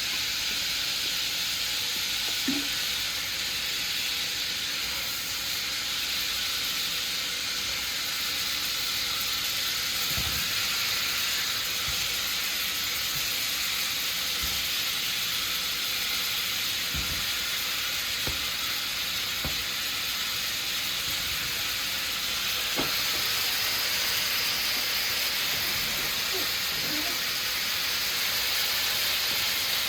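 Smoked turkey necks sizzling steadily in hot butter in a pot, with a few faint knocks.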